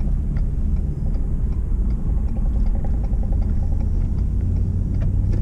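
Pickup truck on the move, its engine and road noise a steady low rumble heard inside the cab; the engine hum grows a little stronger near the end.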